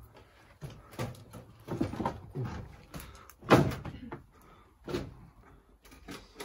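Several irregular knocks and scrapes, the loudest about three and a half seconds in.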